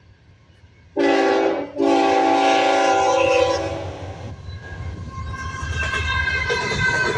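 Norfolk Southern freight locomotive's multi-chime air horn sounding a short blast, then a longer one about two seconds long, as the train approaches the grade crossing. After the horn the diesel locomotive's engine and wheels rumble, growing louder as it passes the crossing.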